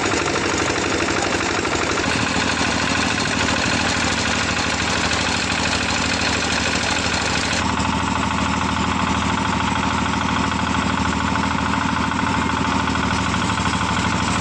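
Engine-driven sugarcane crusher running steadily as cane is fed through its rollers, with a fast, even beat. Its tone shifts abruptly twice.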